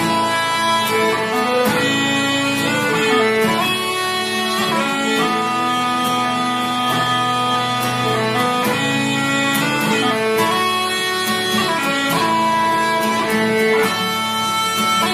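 Instrumental background music: a melody of held notes changing every second or so over a steady low drone.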